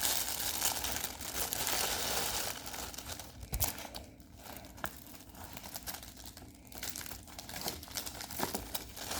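Plastic packaging of a diamond painting kit crinkling and rustling as it is handled, busiest for the first three seconds, then quieter with a few light clicks and taps.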